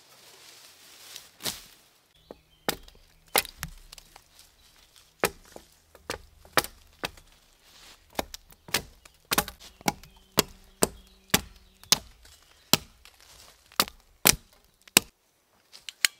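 An axe chopping dead, dry spruce wood: a series of sharp, uneven strikes, about one and a half a second.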